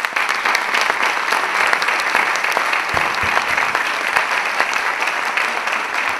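Audience applauding: loud, dense, steady clapping from many hands.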